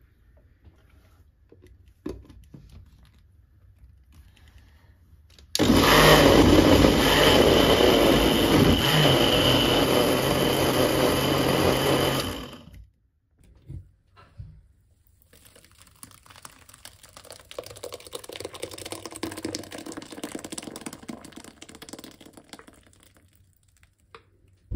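Countertop blender with a glass jug running at full speed for about seven seconds, puréeing greens, apple and orange with water; it starts and stops abruptly. Afterwards comes a quieter, uneven liquid noise as the green purée is strained through a cloth bag into a bowl.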